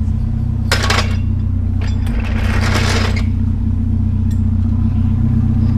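Vehicle engine running steadily while driving, with loose scrap metal rattling and clanking in the back, briefly about a second in and again for about a second from two seconds in.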